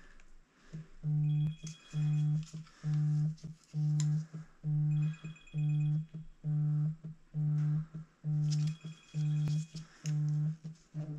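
A low buzzing tone pulsing on and off about once a second, each pulse about half a second long, eleven times, with a few faint high beeps among them.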